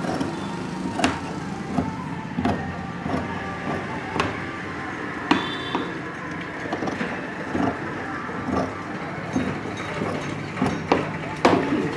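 Large tailor's shears cutting fabric on a cutting table: a series of short, sharp snips, about one a second, over steady background noise.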